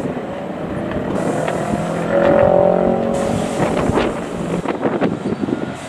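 Class 143 Pacer diesel railbus's underfloor diesel engine running as the unit pulls away, its steady hum swelling about two seconds in and then fading.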